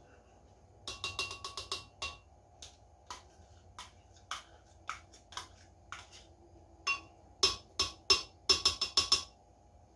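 A spoon tapping and knocking against the rim of a blender jar to shake margarine off into it: a quick irregular run of sharp clicks with a short ring, one cluster about a second in and a busier one near the end.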